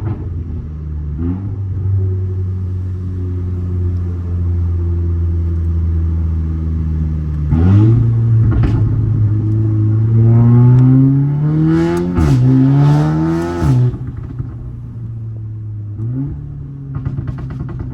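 2019 Audi S3 8V's 2.0-litre turbocharged four-cylinder, through an aftermarket Rogue Performance exhaust, running at a steady cruise. About halfway through it pulls hard with rising pitch, dips briefly at a gear change and climbs again, then the driver lifts off and it settles back to a steady note.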